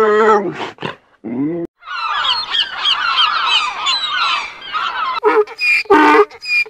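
Animal calls in sequence: two short wavering calls from a lynx in the first second or so, then a flock of gulls calling over one another for about three seconds, then a donkey braying in loud repeated bursts near the end.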